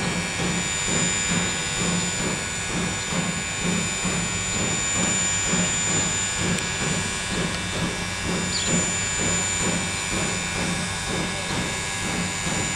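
Steam locomotive hissing steadily as it vents steam, with a low pulsing beneath it about one and a half times a second.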